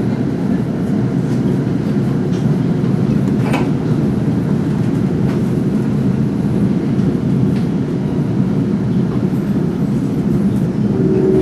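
Steady low rumble of a moving commuter train heard from inside a passenger coach, wheels running on the rails. There is one brief sharp sound about three and a half seconds in.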